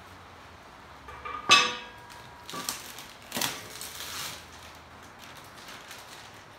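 A sharp metal clank with a brief ring about a second and a half in, from the metal cart frame or its parts being knocked, followed by a few seconds of crinkling plastic wrap as a wrapped bag is handled.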